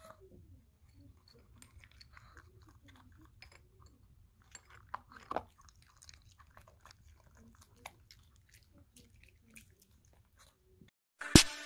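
Shih Tzu chewing dry kibble: quiet, scattered crunches, a few louder ones about halfway through. A bright, chiming music jingle starts just before the end.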